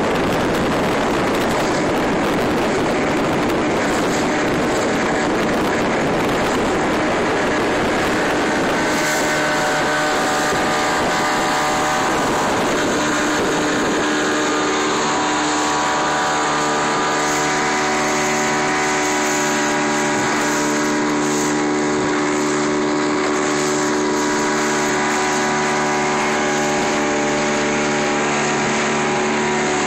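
1975 Evinrude 50 hp two-stroke outboard motor running steadily at speed, pushing a boat over open water, under a rush of wind and water. The wind and water rush is strongest in the first half; from about halfway the engine's steady drone comes through more clearly.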